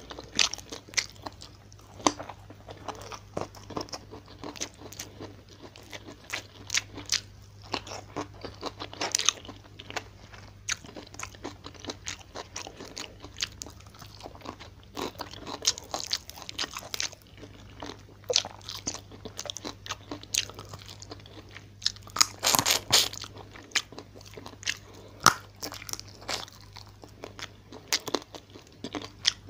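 Close-miked chewing and crunching of a hand-eaten meal of fried tilapia and vegetables: irregular wet bites and crisp crunches, loudest in a cluster a little after two-thirds of the way through. A faint steady low hum runs underneath.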